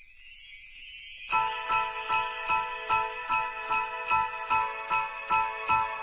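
Sleigh bells jingling in a Christmas-style music intro. It opens as a high shimmering roll, then a little over a second in it settles into a steady beat of about two and a half shakes a second over held notes.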